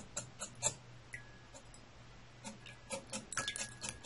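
Small hobby servo motor ticking in quick short steps, about five a second, as the micro:bit's tilt moves its straw arm, pausing for a moment in the middle, with a faint steady whine twice.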